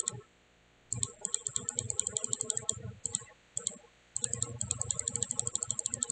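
A computer mouse scroll wheel ticking in quick, evenly spaced runs, about ten clicks a second. There is a burst about a second in, two lone clicks, and then a longer run from about four seconds in.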